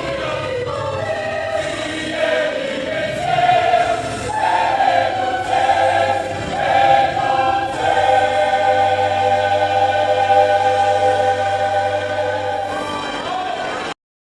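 Youth choir singing a gospel song, ending on a long held chord that cuts off suddenly near the end.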